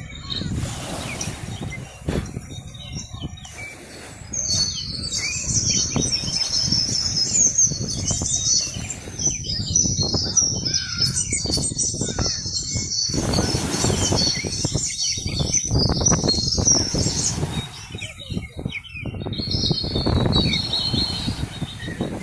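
A flock of small birds chirping busily together, many quick high calls overlapping, fading out near the end and coming back briefly, over a low, gusting rumble.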